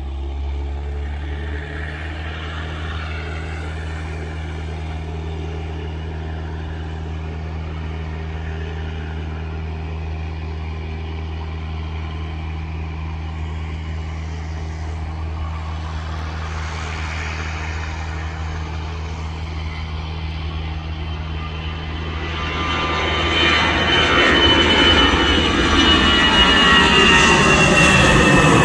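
easyJet Airbus airliner departing under take-off power. A steady low rumble from its jet engines builds to a much louder roar over the last several seconds as the climbing jet passes overhead, with whining tones sliding down in pitch.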